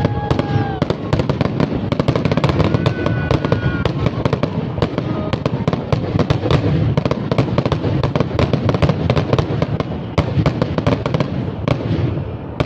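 Fireworks display: a dense, continuous barrage of crackles and pops from aerial shells and spark fountains over a steady low rumble.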